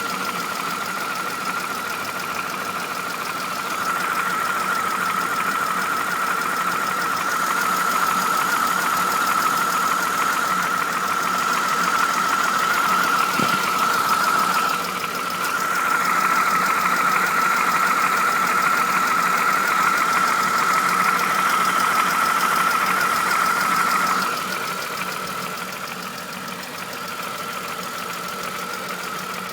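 BMW engine running, with a steady high whine over it. It gets louder about four seconds in and drops back near the end. The owner is asking about its noise, a tac-tac tapping, and notes that the revs won't hold steady, with a vacuum hose disconnected.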